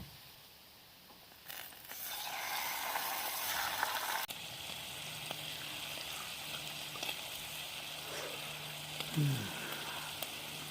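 Bacon frying in a pan over an alcohol stove, sizzling steadily; the sizzle starts up about two seconds in.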